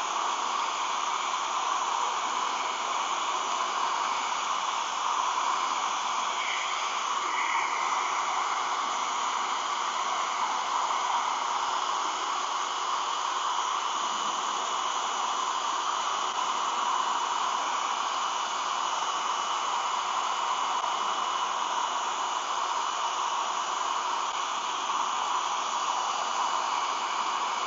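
Handheld hair dryer running steadily: a constant rush of air with a faint high whine. It is heating the clear vinyl film so that it can be stretched over the goggle lens.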